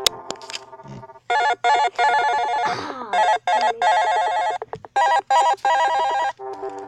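Phone ringtone playing: a rapid trilling electronic ring in groups of two short bursts and one longer burst, repeated three times.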